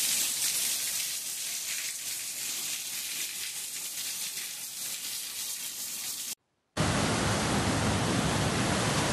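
Heavy rain falling steadily, a high hiss. After a short break about seven seconds in, it gives way to the deeper, fuller rush of muddy floodwater pouring through a breached earthen dam.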